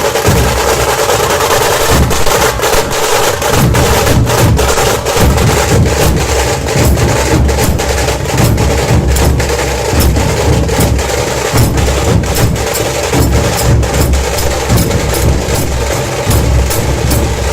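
Puneri dhol-tasha ensemble playing loudly: big barrel dhol drums beat a driving low rhythm under rapid, sharp tasha strokes, which grow denser about six seconds in.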